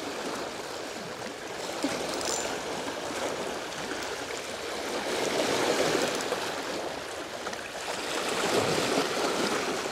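Sea water washing against the rocks of a seawall: a steady rushing that swells twice, about five and eight seconds in.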